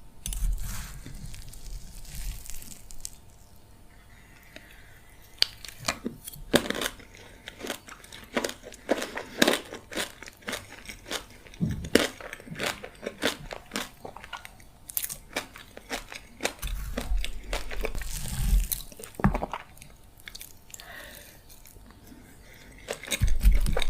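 Close-miked chewing and biting of a Nutella M&M cookie pie: crunches and sharp clicks, densest through the middle, with a few low thumps.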